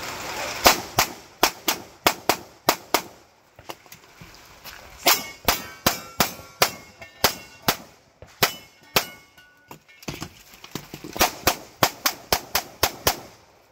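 Glock 45 9mm pistol fired rapidly in several strings of quick shots with short pauses between, the pace of a practical-shooting stage run. Some shots are followed by a brief metallic ring, typical of rounds striking steel targets.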